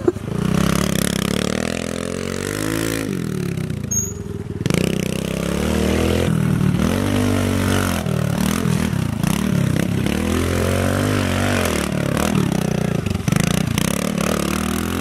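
Pit bike engine revving up and easing off again and again as it is ridden round a dirt track's turns and straights, its pitch climbing and falling back about five times.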